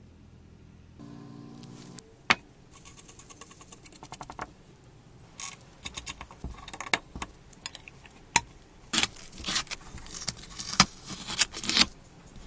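Small metal parts and a screwdriver clicking and clinking while an electric bell's coil assembly is fastened: first a rapid run of fine ticks, then a series of sharp irregular metal clicks and taps.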